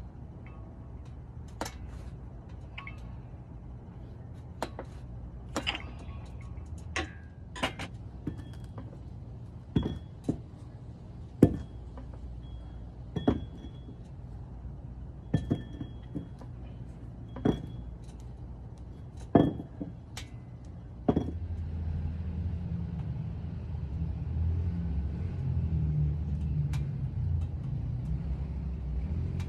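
Metal gym weights clinking and ringing with the lifts, about fifteen sharp clanks spaced a second or two apart. A steady low rumble comes in about two-thirds of the way through.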